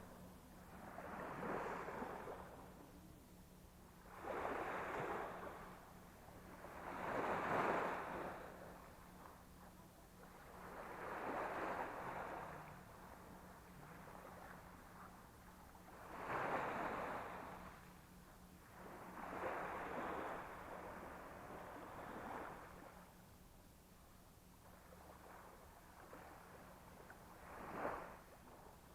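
Sea waves breaking and washing up the beach, each one rising and falling away, about eight in half a minute.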